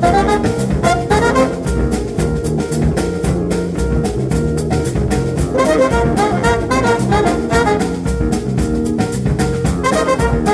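Jazz big band playing an Afrobeat groove: trumpets and saxophones play a horn line over busy drums and hand percussion.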